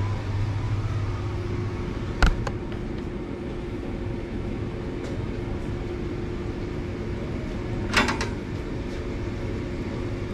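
A steady mechanical hum, with one sharp knock about two seconds in and a short clatter of knocks near eight seconds.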